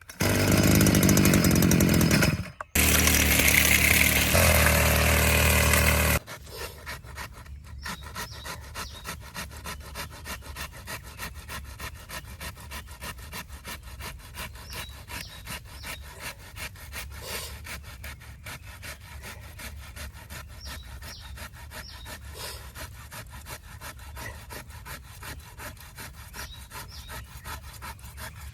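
A hand saw cutting through a fallen tree trunk in steady back-and-forth strokes, about two a second. It is preceded by about six loud seconds of a dense, unidentified sound that stops abruptly.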